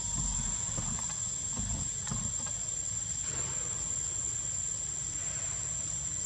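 Steady high-pitched insect drone in the trees, with a low rumble and a few faint clicks in the first couple of seconds.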